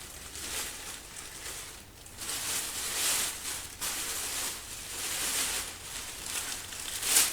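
Rustling and handling noise of packaging as drum shells are unwrapped, in uneven swells.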